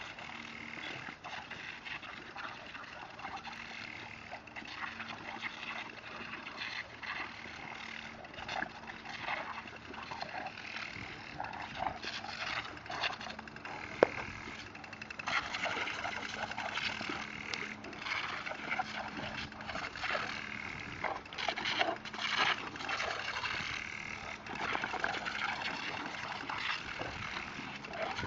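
Garden hose spraying water in a steady hiss, broken by irregular splashes as mastiffs play in the spray.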